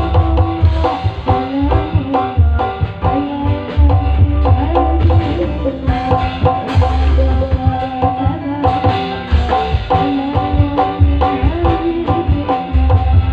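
Loud percussive music: hand drums in a quick rhythm over sustained melodic tones and a deep bass beat.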